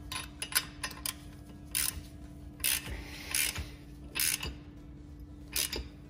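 Socket ratchet clicking as its handle is swung back between strokes, tightening a spark plug into a small two-stroke engine's cylinder head: a few single clicks in the first second, then about five short bursts of clicking.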